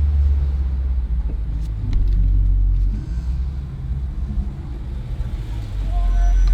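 Low rumble of a 2016 Dodge Challenger Scat Pack's 6.4-litre (392) HEMI V8 and road noise while driving, on its stock exhaust before a mid-muffler delete. It eases off about three seconds in and rises again near the end.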